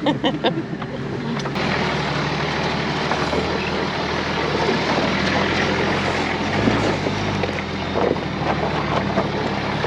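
Four-wheel drive driving slowly over a rough, rocky track: the engine runs steadily under a constant rumble of tyres and body noise. A few short pitched sounds come in the first second or so.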